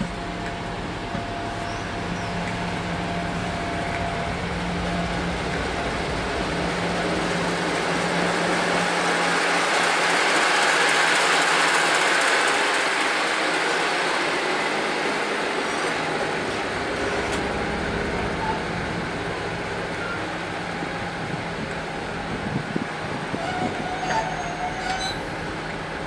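Class 56 diesel locomotive 56051 'Survival' and its train of coaches passing close by. The engine's steady note and the wheel and rail noise swell to a peak about eleven seconds in as the locomotive goes past, then ease off, with a few wheel clicks near the end.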